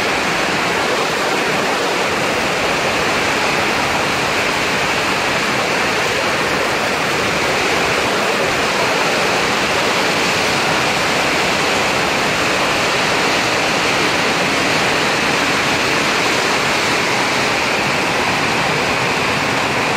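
Heavy rain pouring down: a steady, loud rush that does not let up.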